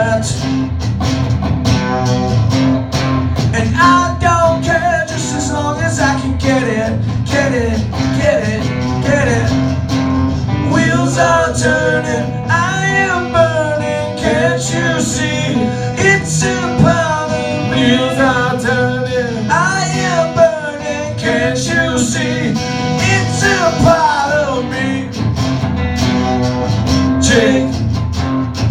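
An acoustic band playing live: strummed acoustic guitar under a lead melody whose notes bend and waver in pitch.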